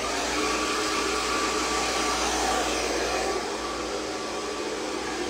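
Handheld hair dryer blowing steadily, a rush of air with a faint motor whine.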